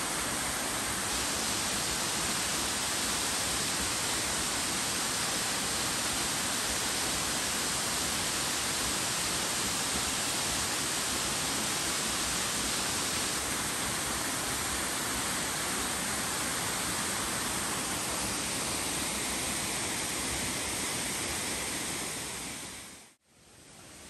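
Waterfall's steady rush of falling water, fading out near the end.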